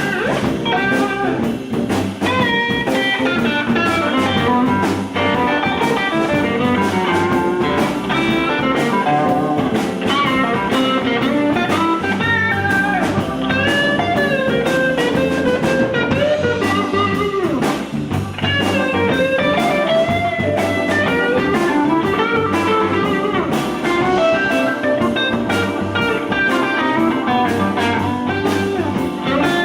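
Live blues band playing an instrumental break: a lead line with bent, sliding notes over guitar and drums.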